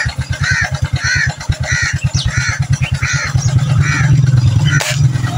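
A bird calling over and over, one harsh call about every two-thirds of a second, over the low steady chugging of a small engine running. A single sharp crack sounds near the end.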